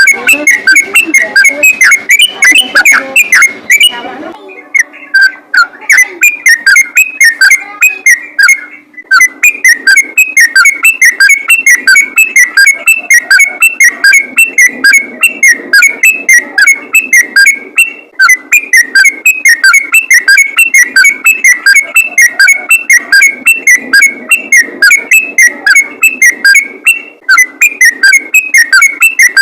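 Yellow-vented bulbul (trucukan) singing in a rapid, nonstop run of short whistled notes, several a second, which bird keepers call 'ropel gacor' singing.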